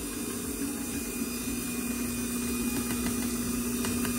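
Kenwood stand mixer's motor running steadily at speed, its paddle beating cream-cheese batter. A steady hum with a few faint clicks near the end.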